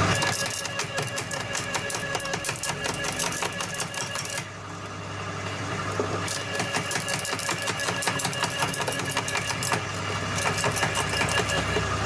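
Okay 2000 W electric roller shredder crunching a piece of dead dry wood: rapid cracking and snapping over a steady motor hum. The cracking eases off briefly about four seconds in, then picks up again.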